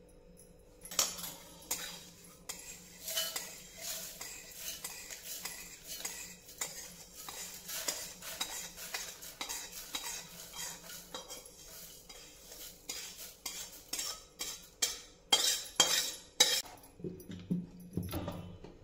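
Metal spoon scraping and clinking against a steel bowl and a stainless-steel mixer-grinder jar as roasted whole spices are scooped in, the seeds rattling into the jar. The clatter starts about a second in, with a run of louder knocks near the end as the jar is set on the mixer base.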